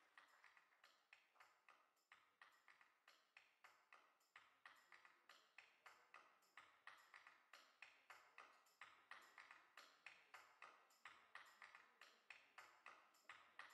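Faint, steady run of short tapping clicks with a slight ring, about three a second.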